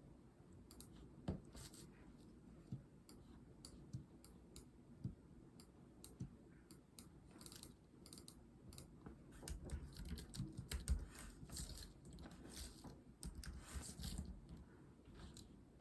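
Quiet eating sounds: scattered small clicks and taps of utensils on dishes, with faint chewing and biting.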